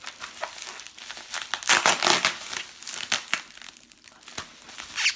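Bubble wrap crinkling and crackling as hands unwrap and handle a wrapped item, in irregular bursts, loudest about two seconds in.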